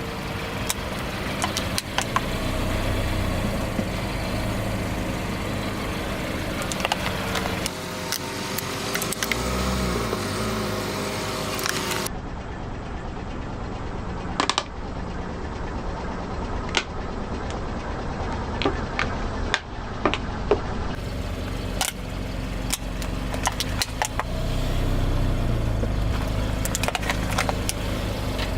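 Car engine running slowly with a steady low hum, broken by scattered sharp cracks and snaps as the tyres crush objects.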